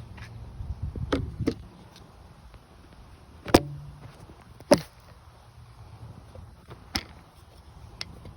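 A low steady hum that drops away about a second and a half in, then a few scattered sharp knocks and clicks, the two loudest a little over a second apart near the middle.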